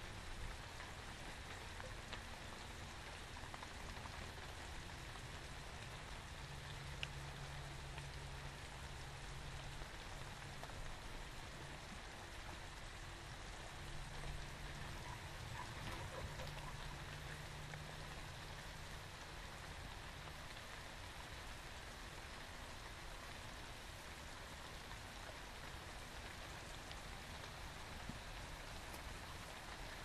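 Steady rain falling, a fine even patter. A faint low drone comes and goes through the middle.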